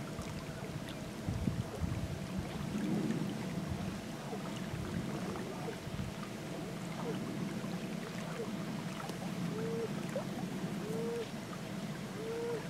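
Steady rush of flowing river water, with short repeated higher notes about once a second in the second half.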